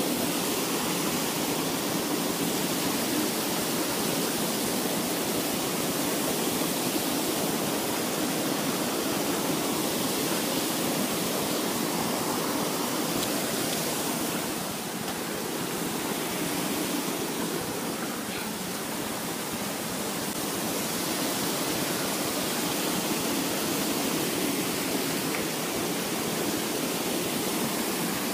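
Steady rushing of a shallow forest stream running over rocks, a little quieter for a few seconds midway.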